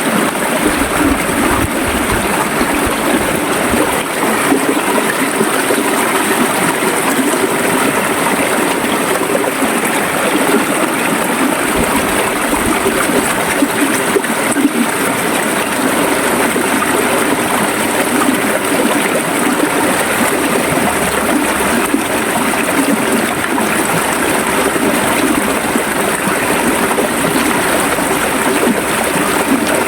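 River water flowing and gurgling in a steady, unbroken rush.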